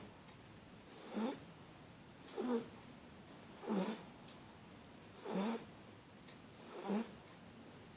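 Shar pei puppy snoring in its sleep: a short snore about every one and a half seconds, five in all.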